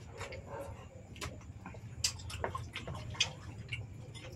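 Close-up eating sounds of oysters eaten by hand: scattered sharp clicks and smacks of oyster shells being handled and of mouths chewing and sucking, over a steady low hum.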